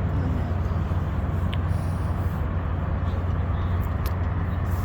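A steady low motor hum under an even rushing noise, unchanging throughout.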